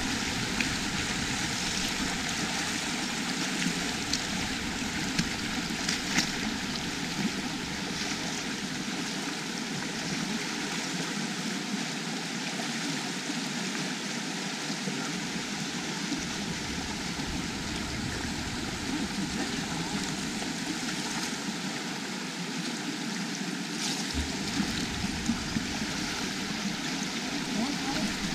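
Steady rush of flowing stream water, with a few faint clicks.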